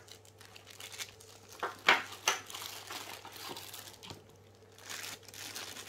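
Plastic packaging bags crinkling and rustling as plastic-wrapped power adapters are handled, in irregular crackles. The sharpest crackle comes about two seconds in, and the rustling gets busier near the end.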